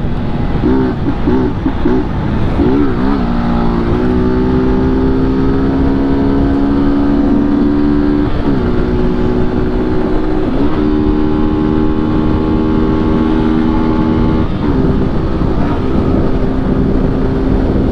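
BMW G 310 GS single-cylinder engine running through a loud open 'mangote invertido' exhaust under way. The revs waver and climb at first, then hold steady and high, with three brief drops in pitch that each recover quickly.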